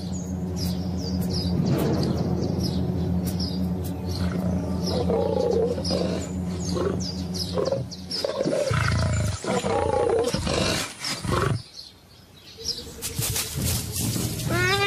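Big cat growling and roaring: a low, steady growl at first, then louder uneven roaring calls in the middle. Birds chirp faintly through it.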